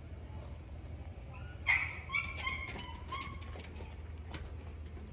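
Shiba Inu giving a string of short, high-pitched excited whines, the loudest about a second and a half in, with scattered light clicks among them: an excited greeting on seeing its owner.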